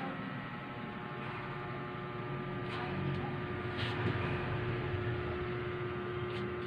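A steady hum over background room noise, with a few faint clicks.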